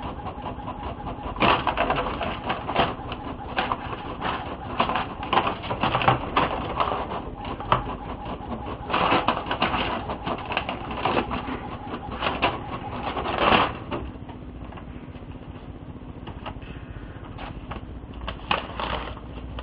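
Printer running, with irregular mechanical clattering and clicking; it quietens to a faint hum about 14 seconds in, with a few more clicks near the end.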